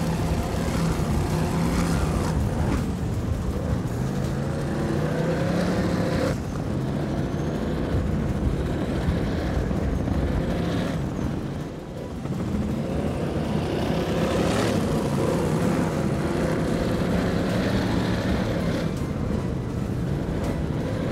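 Mercury Racing 1100 twin-turbo V8 engines of a 40-foot Skater catamaran running hard at speed, a loud, steady engine note. The pitch climbs in the first few seconds, and the sound dips briefly about halfway through.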